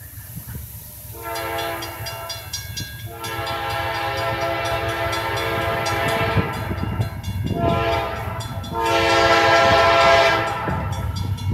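Diesel freight locomotive's multi-chime horn sounding a chord in three blasts, the middle one longest, as a loaded coal train approaches, with a low engine rumble growing louder toward the end. A railroad crossing bell rings evenly underneath.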